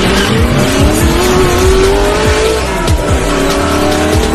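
Electronic outro music with a steady beat of low, pitch-dropping kicks, overlaid with a race-car engine sound effect that revs up twice.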